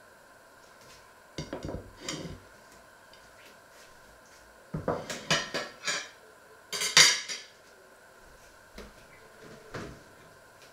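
Kitchenware being handled: clinks and clatters in three short bursts, the loudest about seven seconds in, then two light knocks near the end.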